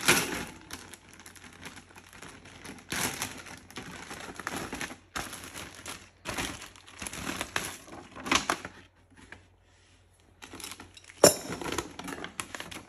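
Clear plastic bag crinkling and rustling in irregular bursts as wire oven racks are pulled out of it. One sharp knock about eleven seconds in is the loudest sound.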